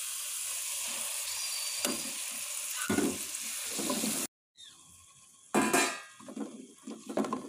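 Curry sizzling in an aluminium pot on the stove, with a wooden spoon scraping and stirring through it. The sizzle cuts off suddenly about halfway through, and then come quieter scrapes and a louder clatter as the spoon stirs the kachnar buds into the pot.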